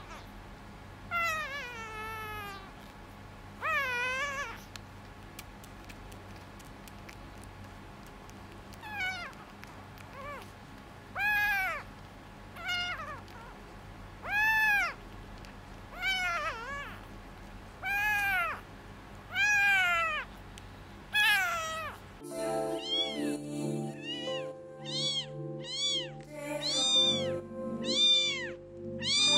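Very young calico kitten meowing repeatedly during bottle feeding, one rising-and-falling cry every one to two seconds. About three-quarters of the way through, background music comes in and the kitten's meows go on, closer together.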